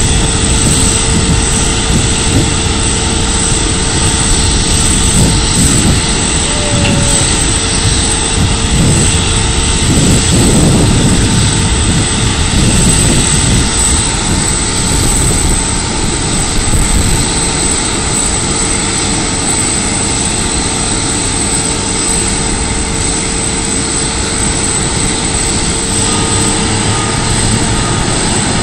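Boeing 747-8F's four General Electric GEnx-2B turbofans idling as the freighter taxis slowly. The sound is a steady, loud high whine over a low rumble.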